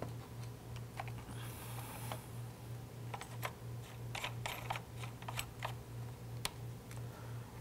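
Hands fitting and hand-tightening a double O-ring hose connection with its plastic nut: a run of small irregular clicks and taps, with a brief rustle about a second and a half in. A low pulsing hum sits underneath.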